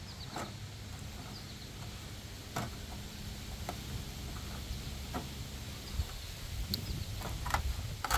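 Siding panels being worked loose with a pry tool: scattered sharp clicks and snaps at irregular intervals as the seams are forced, over a low steady background rumble.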